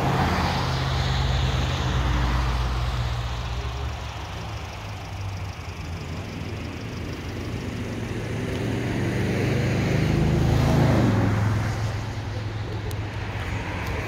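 Road traffic: motor vehicles going by, a low engine hum that fades over the first few seconds, then builds again to its loudest about eleven seconds in and eases off.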